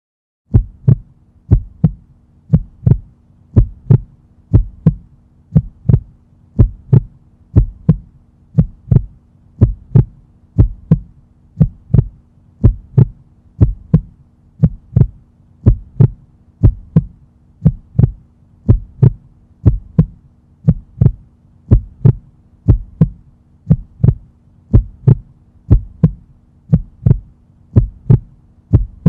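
Heartbeat sound effect: a steady, even lub-dub, each beat a pair of short low thumps, about one beat a second, over a faint low hum.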